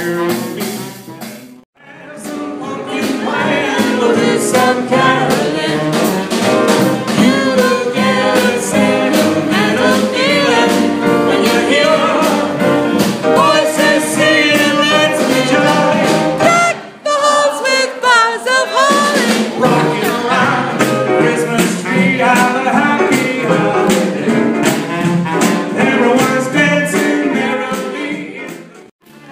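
Live small-band jazz with drums, upright double bass and saxophone backing a male crooner singing into a microphone. The music briefly drops out about two seconds in and again about midway.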